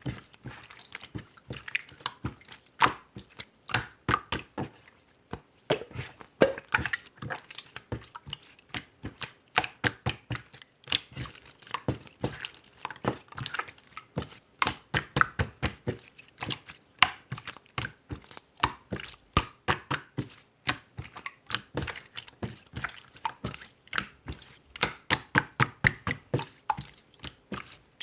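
Slime being squeezed and poked by hand, making a quick, irregular run of wet clicks and small pops, several a second.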